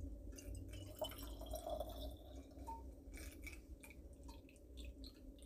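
Juice poured from a glass pitcher through a plastic funnel into a small glass jar: a faint trickle and splash of liquid, with a few light clicks.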